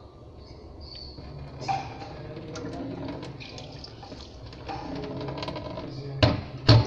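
Water running or splashing, with scattered small clicks and two loud knocks near the end.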